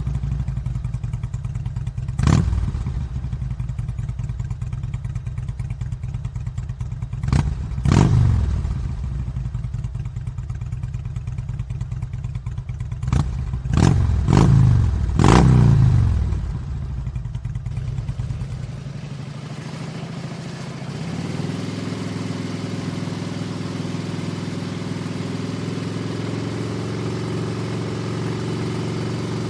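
Harley-Davidson V-Rod V-twin engine idling with a low, even rumble, revved in short throttle blips several times in the first half, the last ones in a quick cluster. After about 19 s the deep rumble drops away and it settles into a steadier, higher-pitched running sound.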